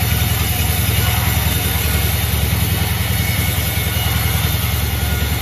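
An engine idling steadily, with a low, even pulsing.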